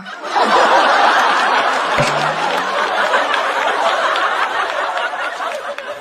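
Studio audience laughing and applauding in response to a stand-up punchline. The laughter is loudest in the first couple of seconds, then slowly fades.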